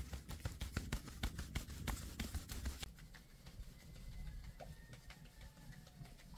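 Wooden-rimmed drum sieve being shaken and knocked to sift flour: a quick, irregular run of sharp taps for about the first three seconds, then only a few soft taps.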